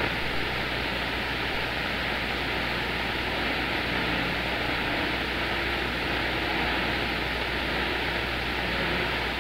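Steady hiss of CB radio static on 27.025 MHz, with the squelch open between transmissions while the receiver listens for distant skip stations.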